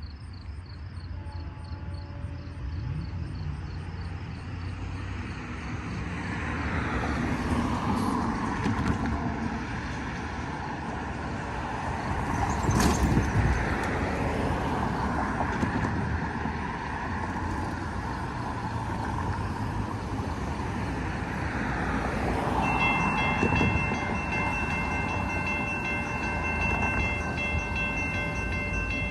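GO Transit MP40 diesel locomotive approaching and passing a level crossing, sounding its horn, with the rumble of the engine and rails growing louder. About three-quarters of the way in, a steady multi-pitched tone starts and holds to the end.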